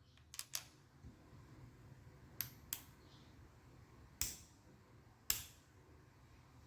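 Six isolated sharp clicks, two of them coming in quick pairs, from mechanical keyboard switches (Amerteer Jade factory-lubed linears) being handled and pressed one at a time.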